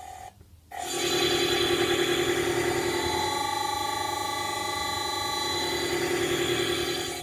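Electric motor run from a Mitsubishi D700 variable frequency drive, humming with a steady electrical whine. It cuts out briefly about half a second in, starts again, and drops away suddenly at the end.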